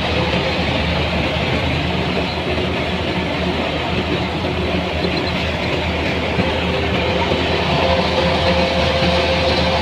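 Farm machinery running steadily: a continuous, unbroken engine and mechanical noise.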